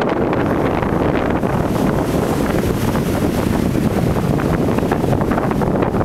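Strong sirocco wind buffeting the microphone in an uneven, rumbling rush, with surf breaking on the shore underneath.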